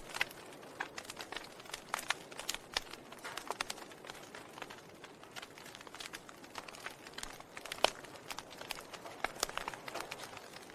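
Wood fire crackling in a fireplace: irregular sharp pops and snaps over a soft hiss, with one louder pop near the end.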